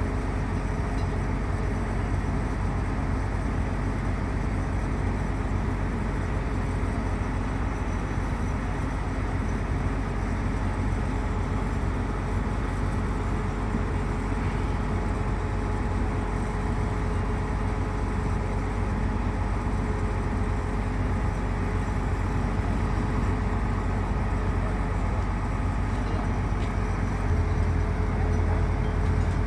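Heavy diesel engines of mobile cranes running steadily under load during a tandem lift, a continuous low drone with a few steady tones over it. The low rumble grows a little louder near the end.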